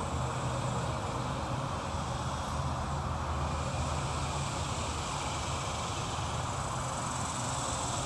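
Steady low mechanical drone, like distant engine noise, with an even hiss over it and a faint high steady tone. No bird calls stand out.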